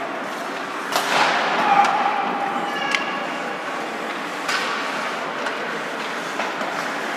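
Ice hockey play in a large arena: sharp knocks of sticks and puck against each other and the boards, over a steady noisy background from skates on the ice, with short shouts from the players.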